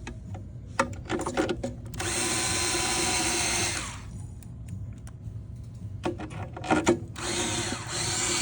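Power drill/driver running in two steady bursts of about two seconds each, driving screws through the mounting holes, with a few handling clicks before each burst.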